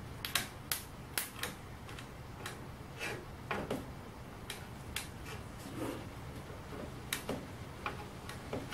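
About a dozen sharp clicks and light taps at uneven intervals as hands work the soft-top's front bow and fabric.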